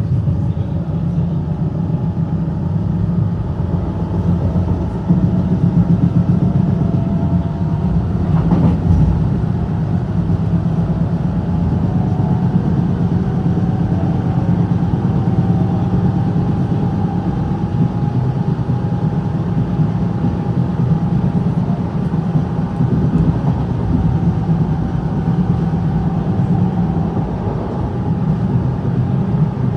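Berlin S-Bahn class 485 electric multiple unit running, heard from inside the car: a steady low rumble of wheels on track, with the car body rattling. A faint whine drifts slowly in pitch, and there is a single knock about nine seconds in.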